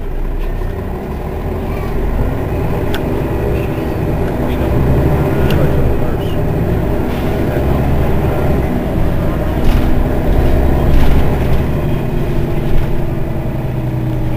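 Mercedes-Benz Citaro city bus's rear-mounted engine idling steadily while the bus stands at a stop, heard from just behind the bus. A few short sharp clicks and knocks sound over it.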